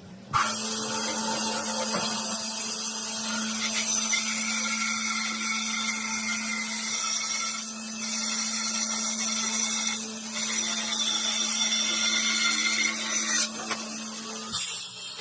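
Electric power tool starting up and running steadily with an even whine and hiss, then shutting off near the end.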